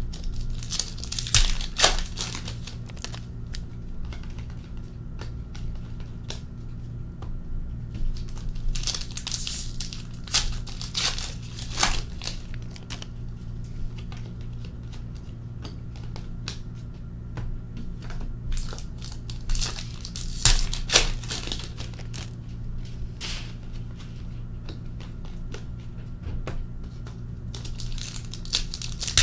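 Hockey card pack wrappers being torn open and crinkled in four bursts about ten seconds apart, with quieter handling of the cards in between, over a steady low hum.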